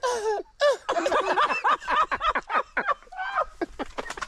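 Men laughing and chattering in quick, short bursts of voice, with a few sharp knocks near the end.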